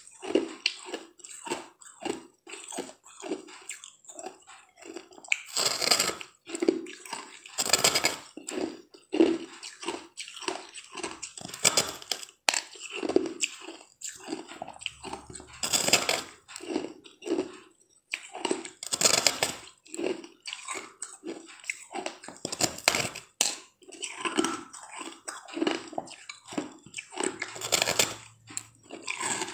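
Biting and crunching into a frosted disc of green-tinted ice held at the mouth. Loud crunching bites come every few seconds, with chewing and crackling between them.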